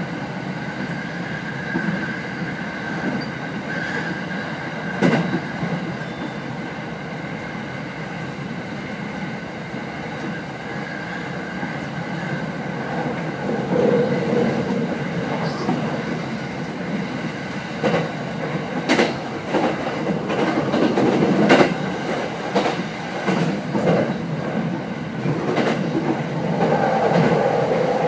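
Running sound heard inside a Rinkai Line 70-000 series trailer car, an unpowered car with no motor whine: a steady rumble of wheels on rail with sharp clacks over rail joints every few seconds.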